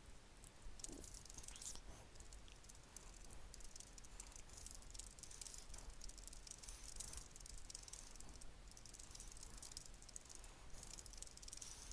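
Typing on a computer keyboard: a steady run of quick, faint key clicks.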